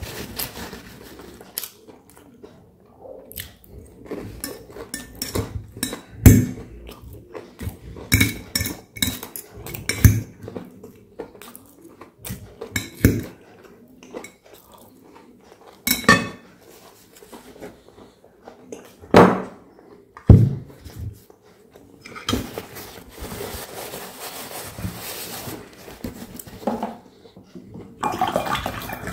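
Metal fork and serrated knife clinking and scraping on a ceramic plate while cutting up a breaded cutlet: a long, irregular string of sharp clinks, with close-up chewing in between.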